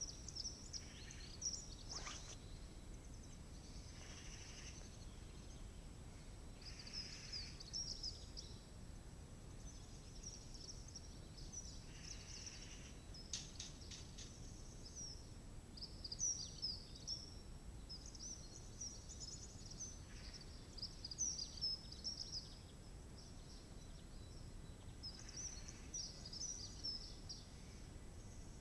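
Small birds chirping and twittering in many quick, high bursts over a faint, steady outdoor background noise.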